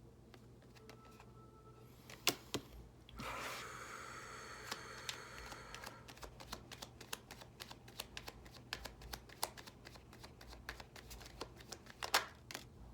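A deck of tarot cards being shuffled by hand: a few sharp snaps, a dense riffle of the cards about three seconds in, then a long run of quick light flicks, with a sharper snap near the end.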